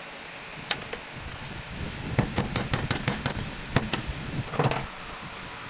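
Hammer striking a screwdriver held against the band clamp of a Toyota Yaris driveshaft boot, about ten quick metal taps in a burst, working the clamp off to remove the boot. A single click comes first.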